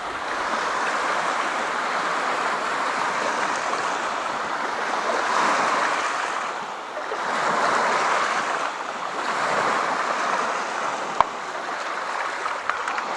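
Lake waves washing onto the shore, a steady hiss that swells and fades every couple of seconds. One sharp click about eleven seconds in.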